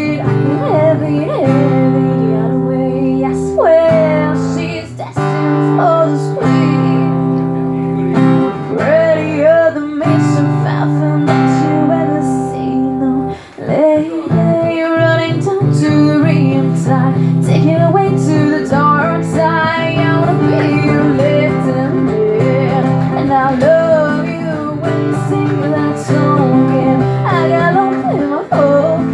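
A woman singing live while playing an acoustic guitar, her voice and guitar amplified through a microphone and PA.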